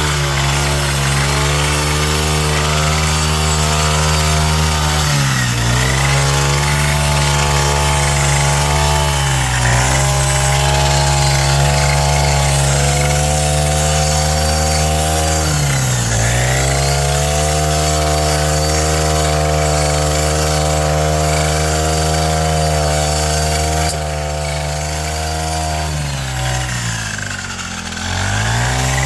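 Small engine of a grass cutter running steadily. Its pitch dips briefly and recovers four times: about 5, 9, 16 and 28 seconds in.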